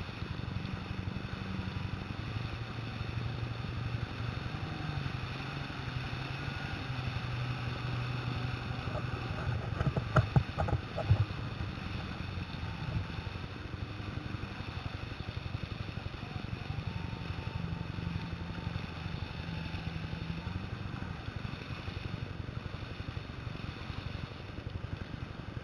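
Jet ski engine running, its pitch stepping up and down as the throttle changes, over a rush of wind and water. A few loud thumps come about ten seconds in.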